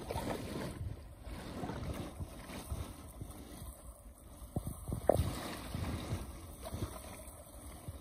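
Small waves lapping against the hull of a small boat, with a few sharper slaps about five seconds in, the loudest just after five seconds. Light wind rumbles on the microphone.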